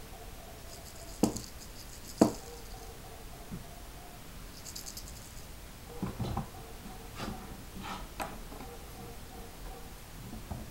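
A few sharp clicks and knocks over quiet room tone: two loud ones in the first few seconds, then a cluster of softer thuds and a few lighter clicks later on.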